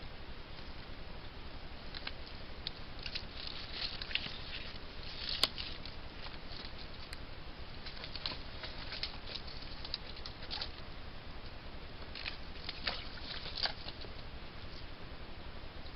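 A fisher at a trapped beaver carcass rustles and crackles among the sticks in three bursts of small clicks, the sharpest a little over five seconds in, over the steady hiss of a trail camera's microphone.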